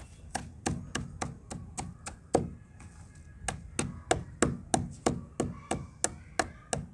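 A hand-held stone pounding broken red brick pieces against a concrete floor, crushing them to powder. It goes as a steady run of sharp knocks, about three a second.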